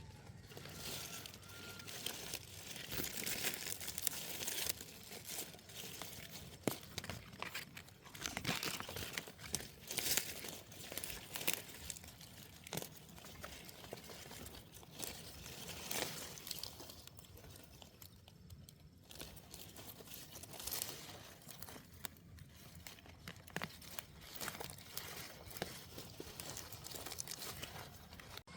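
Irregular crinkling, rustling and crunching, as of material being handled or torn, with many small crackles.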